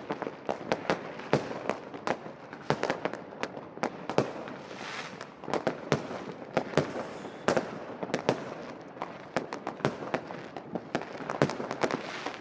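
New Year's fireworks going off all around: a dense, irregular run of sharp bangs and pops, several a second, over a steady crackling background.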